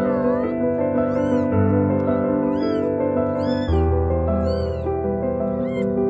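Newborn kittens mewing: short, high, thin cries that rise and fall in pitch, about five in a row, roughly one a second. Background music of held chords plays underneath.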